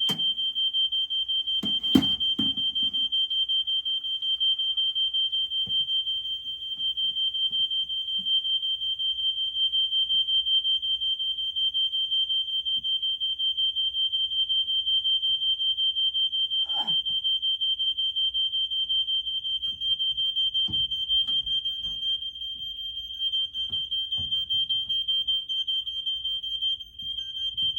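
Smoke alarm sounding continuously, a shrill, rapidly pulsing beep, set off by smoke from caribou frying in butter. A single loud knock comes about two seconds in.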